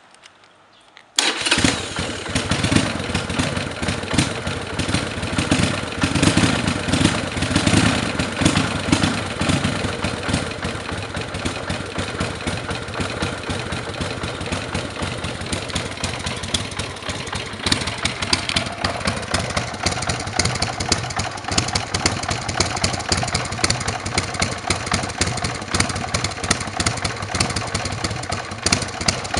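Buell M2 Cyclone's air-cooled V-twin, breathing through a Vance & Hines exhaust with its silencer insert fitted, catches about a second in and then idles, the low beat easing after about ten seconds.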